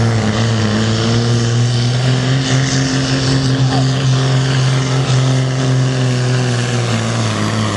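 Fiat 1300 pulling tractor's diesel engine running at steady high revs under full load while dragging a weight sled, its pitch holding nearly level.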